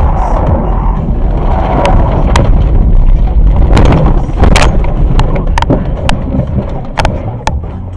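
A car running off the road across rough, snow-covered ground, heard through a dashcam inside it: a loud, steady low rumble from the body and tyres, with a series of sharp knocks and bangs from about two seconds in as it bounces over the terrain.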